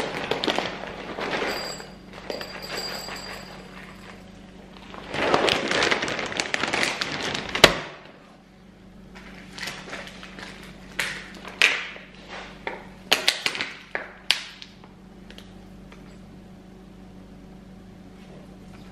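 Handling noises from preparing dog food at a kitchen counter: rustling and scraping, a sharp knock about seven and a half seconds in, then a run of light clicks and taps as food goes into a bowl, before it settles to quiet room tone.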